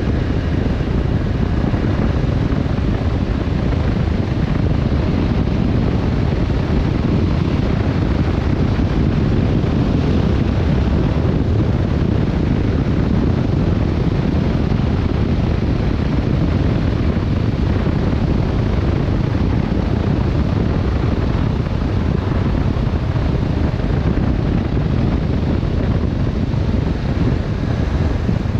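Steady wind rush buffeting the microphone while riding a Yamaha Tracer 7 motorcycle, with its parallel-twin engine running underneath at an even pace.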